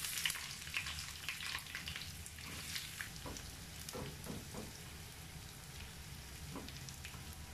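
Sliced shallots sizzling in hot coconut oil in a small nonstick pan as they fry for a tempering, stirred with a wooden spatula. The sizzle starts loud the moment they go in and slowly dies down.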